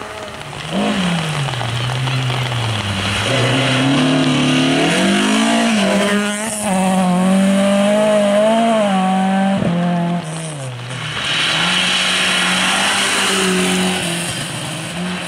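Rally car engines at full throttle on a wet gravel stage: an engine note climbs through the gears, held high as the car comes close, then breaks off abruptly. A second car's engine revs hard over the hiss of tyres and spray on wet gravel.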